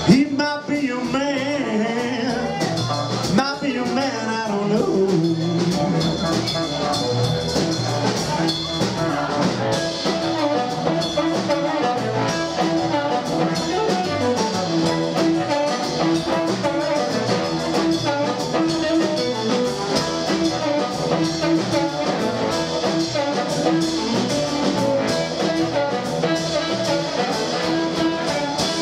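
Live blues band playing an instrumental passage: blues harp (harmonica) holding and bending notes over electric guitar, double bass and a steady drumbeat.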